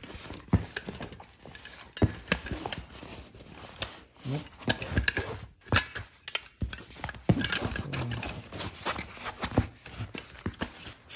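Folded carbon-steel trench shovel knocking and clacking against the tabletop as it is worked in and out of its nylon carry pouch, with irregular sharp clicks and fabric rustling.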